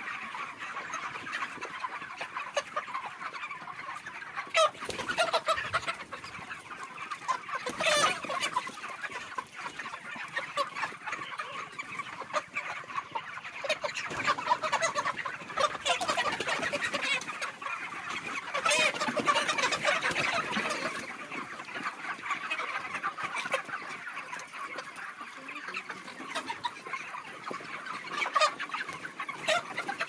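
A large flock of white broiler chickens clucking and chattering continuously, many calls overlapping, with a few brief knocks.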